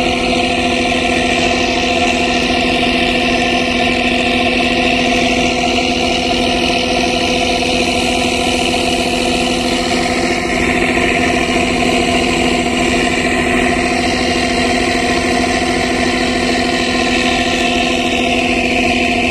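Boat engine running steadily, a constant hum that holds the same speed throughout.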